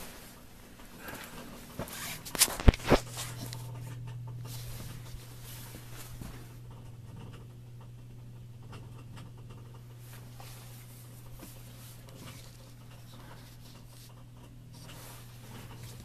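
A few sharp clicks, then a steady low electric hum from a Kenmore front-load washer's drain pump starting about three seconds in and running on. It is the sound of a bad water pump, with the washer not draining.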